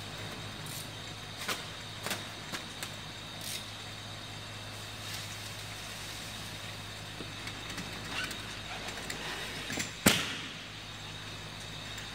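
Steady hum of a slitter-rewinder and factory machinery, with a faint high whine, and scattered knocks and clunks as finished film rolls are slid along and off the machine's rewind shaft by hand. The loudest knock comes about ten seconds in.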